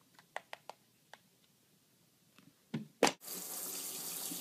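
A few light clicks and taps, then about three seconds in a sharp click and a handheld shower sprayer starts spraying water steadily over a cat in a tub.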